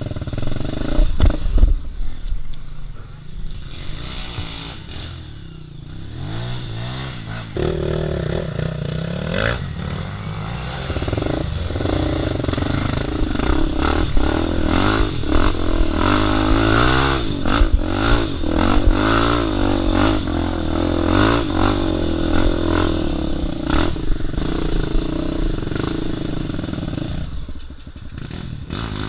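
Single-cylinder four-stroke engine of a Honda XR Tornado dirt bike bored out to 293 cc, low with a few knocks and clatter at first, then revved up and down again and again for about twenty seconds as the bike climbs a rough trail, easing off near the end.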